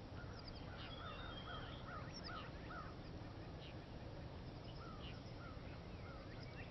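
Birds calling in the background, in quick runs of short chirps from about half a second to three seconds in and again around five seconds, over a low steady outdoor hum.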